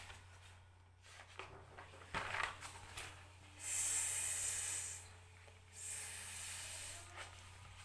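A woman drawing out the hissing /s/ phonic sound twice, each hiss about a second and a half long, over a steady low electrical hum.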